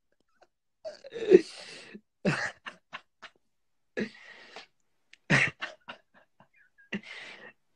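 A young man laughing hard in about six short bursts with silent pauses between them.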